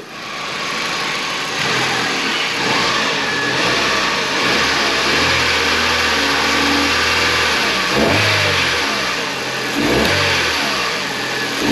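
Kia Rio's engine running smoothly, blipped by hand at the throttle linkage so it revs up and settles back a few times in the second half. It picks up cleanly, with none of the rattle it had before the repair.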